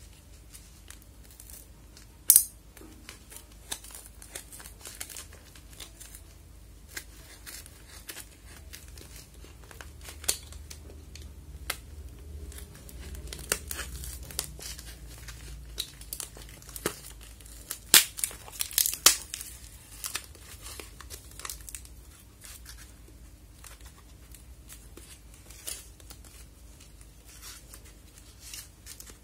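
Brown packing tape being cut and peeled off a small parcel, with irregular crinkling and tearing of the tape and paper wrapping. Sharp, loud rips come about two seconds in and again around eighteen to nineteen seconds in.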